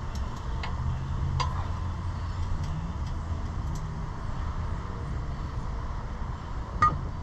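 A steady low mechanical hum with a few short sharp clicks, the loudest near the end.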